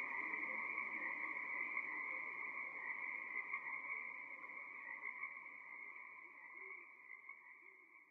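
Dense chorus of Pacific tree frogs calling continuously, fading away through the second half.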